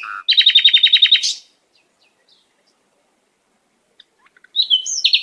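Bird chirping: a quick trill of about ten high chirps in the first second and a half, a pause, then short chirps again near the end.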